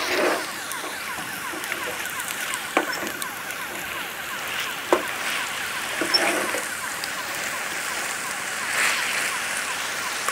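Beef with tomatoes and onions frying in a pan as it is stirred with a slotted spatula: a steady sizzling hiss, with a couple of sharp knocks of the spatula against the pan about three and five seconds in.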